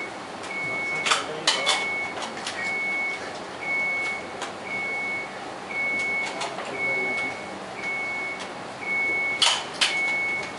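An electronic warning beeper sounding one steady high tone about once a second, over steady background noise. A few sharp clicks or knocks come about a second in and again near the end.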